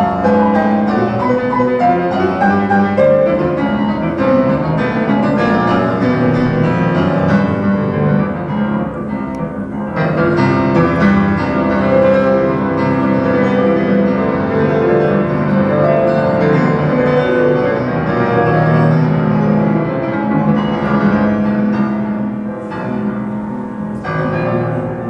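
Recorded classical music playing back from a reel-to-reel tape deck over MBL 116F loudspeakers, fairly loud, getting quieter over the last few seconds.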